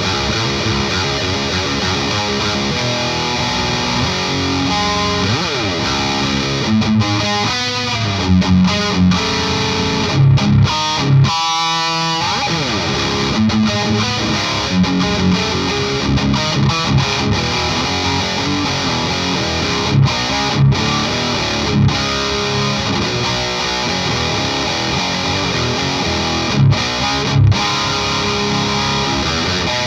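Distorted electric guitar played through a Klon-style Dagon OD overdrive pedal into an amp, a heavy riff that runs without a break, with several louder short accented hits, mostly in the middle and near the end.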